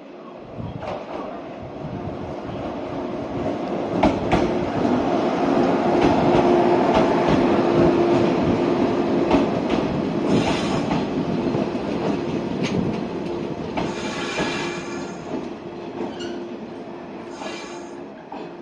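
Electric train running past on the rails: wheel and rail noise that swells to a peak in the middle and eases off, with a steady hum and scattered clicks as the wheels cross rail joints.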